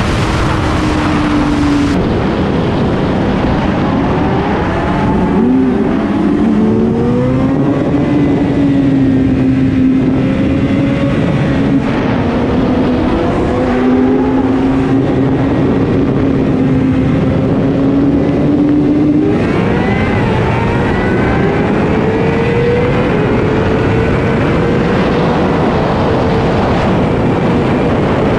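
Suzuki GSX-R750 inline-four running at a steady cruise under heavy wind rush on the mic, then, about two-thirds of the way in, revving up under hard acceleration with the engine note climbing in repeated rises through the gears.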